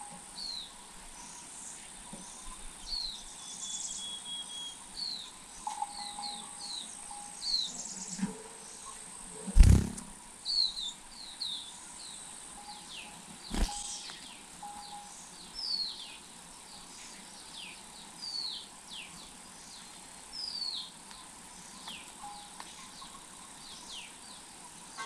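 Birds giving short, high, downward-sliding chirps about once a second, over a steady high insect buzz. Two sharp knocks, the loudest sounds, come about ten and fourteen seconds in.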